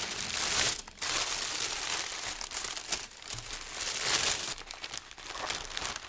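Packaging crinkling as it is unwrapped by hand: a white wrapping sheet is pulled back and a clear plastic bag is handled around a model horse. The rustling goes on, with a short break about a second in, and is softer in the second half.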